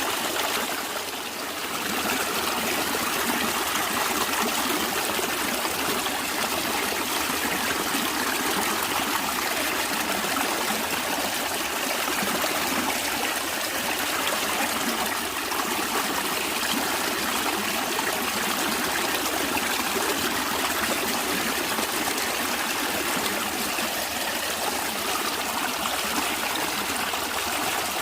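Natural flowing water, running steadily, with a brief dip in level about a second in.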